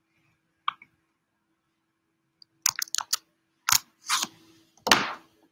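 Scattered sharp clicks and knocks, then two short rustles, from a laptop being clicked and handled, heard over a faint steady hum.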